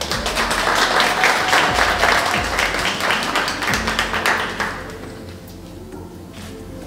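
Audience applauding, a dense patter of clapping for about five seconds that then dies away.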